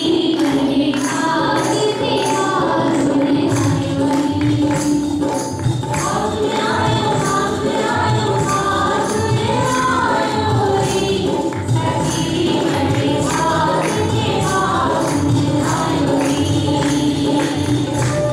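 Holi rasiya kirtan song: group singing over a steady beat with jingling percussion.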